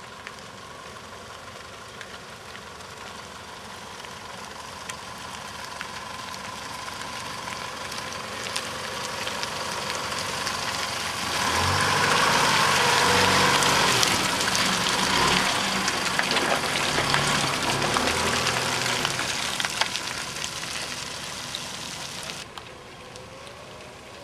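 A Holden Colorado 4WD ute's engine pulling on a muddy track, with its tyres working through wet mud. It comes closer and gets louder, passes close by about halfway through with its engine note shifting, then fades away.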